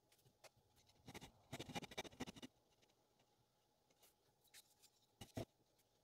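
Faint handling noise of a wooden mug on a wooden workbench: a burst of light scratching and clicking from about a second in, then two short wooden knocks near the end.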